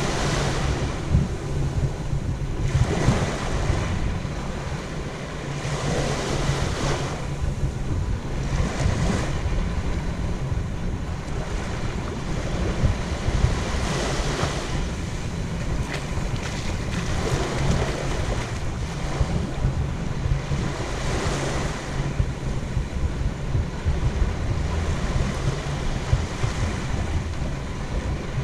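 Small surf washing up on the beach in broad swells every three or four seconds, with a calmer stretch near the end, over a steady rumble of wind on the microphone.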